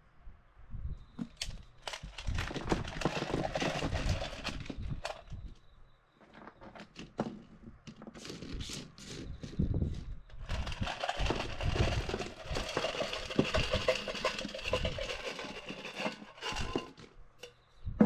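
Small stones poured from a metal can onto a flat panel and pushed about by hand, clattering and rattling in two spells.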